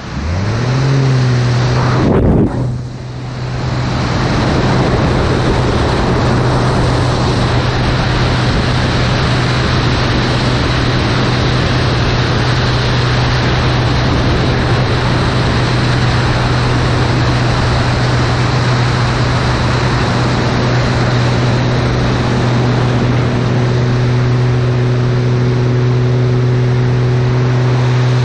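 Single-engine aerobatic propeller plane in flight: the engine and propeller rise in pitch in the first second, dip briefly about two seconds in, then hold a steady drone, with wind rushing over the microphone.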